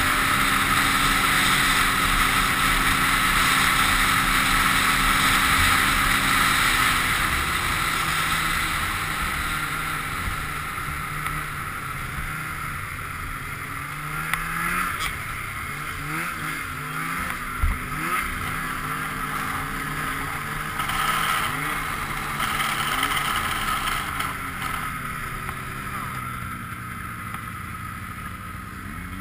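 Polaris snowmobile engine running under way. The note holds steady for the first several seconds, then eases off, and in the second half the revs rise and fall several times.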